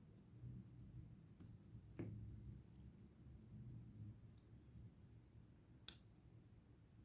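A few faint, sharp clicks of small tools and watch parts being handled during a wristwatch battery change. Two clearer clicks come about two seconds in and about six seconds in, over near silence.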